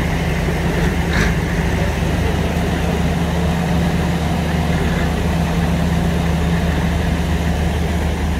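Ford D-series flatbed lorry's engine running steadily at low speed as the lorry crawls past, a constant low engine note.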